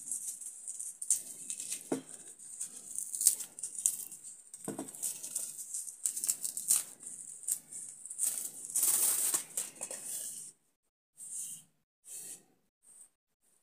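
Dry carnaúba palm straw rustling and crackling as it is handled and torn into strips by hand, in irregular strokes with sharp snaps. It stops about ten and a half seconds in, followed by a few brief rustles.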